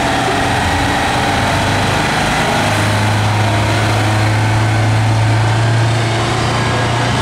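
Diesel engine of an FTF 8x8 military heavy tractor unit running as it drives past hauling a loaded low-loader. It is a steady deep drone that grows louder about two and a half seconds in as the tractor comes alongside.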